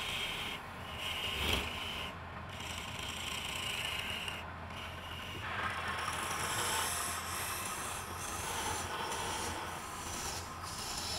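Wood lathe turning a wooden blank while a hand-held chisel cuts into the spinning wood, giving a rasping scrape in stretches of a second or two with short breaks as the tool lifts off. About halfway through, the cut turns broader and brighter, over a steady low hum.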